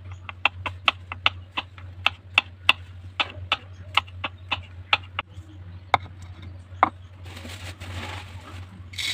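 Kitchen knife chopping on a cutting board, sharp strokes about three a second, slowing to two single chops, then a softer rustling near the end.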